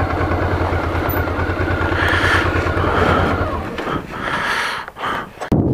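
Motorcycle engine idling with a steady low pulse, then it stops a little under four seconds in, leaving only uneven rustling noise.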